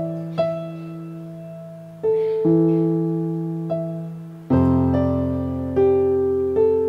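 Yamaha PSR-S975 keyboard played with a piano voice: a slow intro of chords, each struck and left to fade, a new chord every half second to a second and a half.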